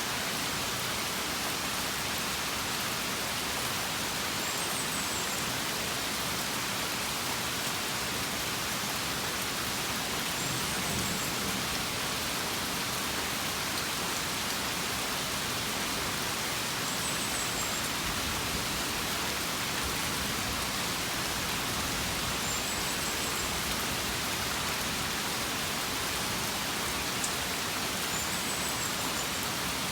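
Steady rain falling, an even hiss with no let-up. A faint short high chirp recurs about every six seconds.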